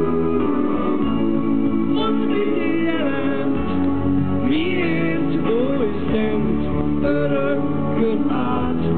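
Live band playing a slow ballad, with a melody line gliding up and down in pitch.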